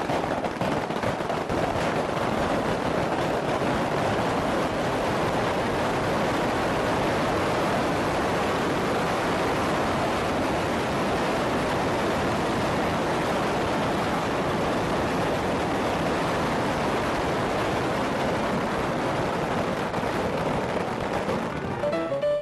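A dense, unbroken barrage of fireworks and firecrackers going off, the bangs and crackles running together into a steady, loud hiss of noise.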